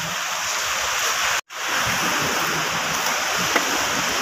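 A steady rushing hiss, like running water or surf, with the sound cutting out completely for a moment about a second and a half in.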